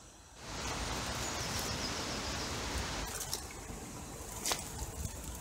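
Rustling of dry long grass and scrub as someone walks through it, starting suddenly just under half a second in and easing off after about three seconds, with one sharp click about four and a half seconds in.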